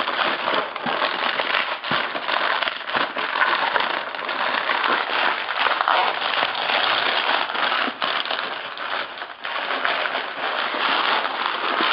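Plastic packaging wrap and sticky tape crinkling and tearing as it is pulled off a bag of airsoft BBs, a dense, continuous crackle.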